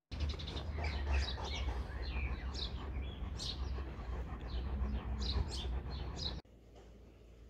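Small birds chirping again and again over a steady low rumble. Both cut off abruptly about six seconds in, leaving a much quieter background.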